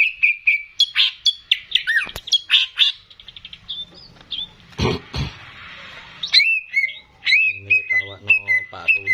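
Greater green leafbird (cucak ijo) singing a fast run of varied whistled chirps. The song breaks off for about three seconds, with two knocks in the gap, then starts again.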